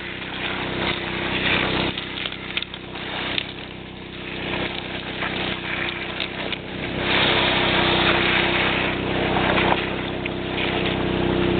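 4-horsepower Yamaha engine running steadily, driving the pump of a homemade Hydro-Force suction nozzle and high banker. Water and gravel rush and rattle through the nozzle as it sucks the hole, growing louder about seven seconds in.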